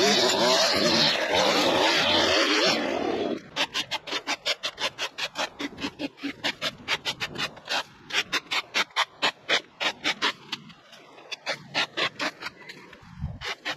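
A loud, steady rushing noise cuts off about three seconds in. Then comes a run of rhythmic scraping strokes, about three a second, from a hand tool worked over a surface, thinning out near the end.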